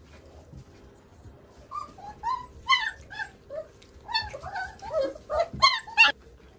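Three-week-old Romanian Mioritic shepherd puppies whining and yelping. A quick run of short, high calls starts about two seconds in and is loudest near the end.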